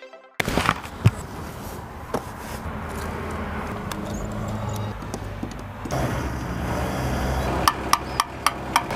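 Self-service petrol station sounds: a steady low engine-like hum with scattered clicks and knocks from the pay machine and the fuel nozzle. The hum grows louder about six seconds in, and a run of sharp clicks comes near the end as the nozzle works at the motorcycle's tank.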